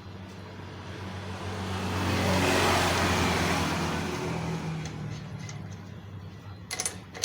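A motor vehicle passing by: engine hum and road noise swell to a peak about three seconds in, then fade away.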